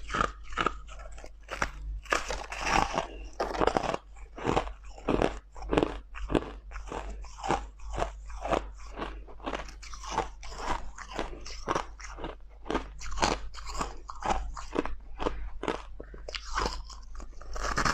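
A person biting and chewing crushed ice close to the microphone: a steady run of sharp, crisp crunches, about two to three a second.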